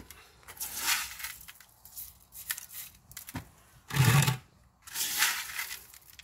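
Coarse masato grit (decomposed granite) crunching and rattling as it is scooped by hand and scattered over the potting soil, in a few separate bursts. The loudest is a short burst with a dull thud about four seconds in.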